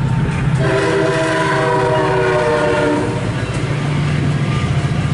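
MARC commuter train's horn sounding one long blast of several tones at once, its pitch sagging slightly, starting about half a second in and stopping around three seconds. Under it and after it, the train rumbles over the crossing.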